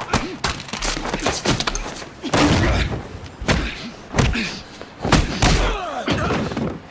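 A series of loud, sharp bangs and thuds, about six spread over a few seconds, with voice-like cries between them.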